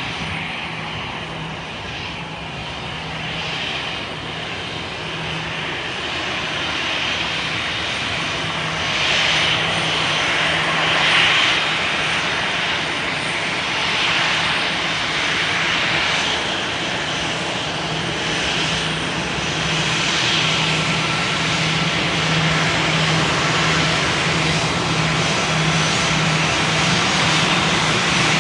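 Airplane engine noise running steadily: a constant rushing roar with a steady low hum underneath, growing slightly louder over the first ten seconds or so.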